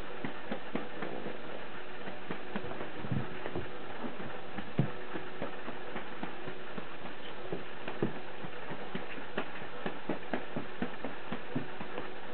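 Irregular soft taps and thumps from cats playing with a cat-teaser wand toy on a rug, the strongest about five and eight seconds in, over a steady faint hum.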